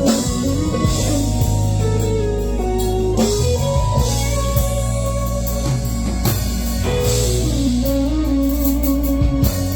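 Band music with electric guitar and drum kit played through a sound system during a sound check, a lead melody line bending up and down in pitch over steady drums and bass.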